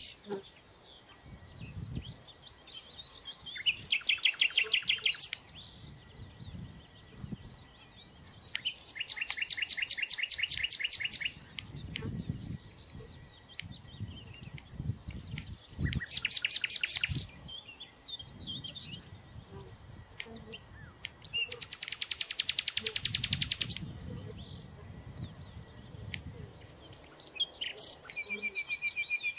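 A songbird singing separate phrases of fast repeated high notes every few seconds, with a held whistled note about halfway through and a rising whistle near the end. A faint low buzz of honeybees at the hive entrance comes and goes underneath.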